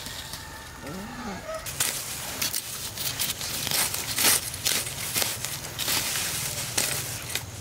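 A few short clucking calls from chickens about a second in, then a long run of irregular rustling and crackling.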